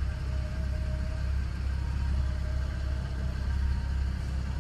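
Dodge Challenger's V6 engine running steadily at idle, a low even rumble heard from inside the cabin.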